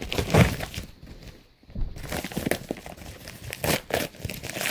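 Mail packaging crinkling and tearing as a package is opened by hand, in irregular rustling bursts with a short pause about a second and a half in.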